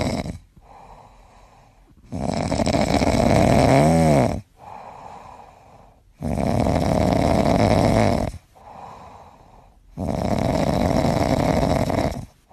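A sleeping cat snoring loudly in a steady rhythm: a long, noisy breath of about two seconds roughly every four seconds, with a quieter breath between each. One snore, about four seconds in, ends in a brief whistling tone.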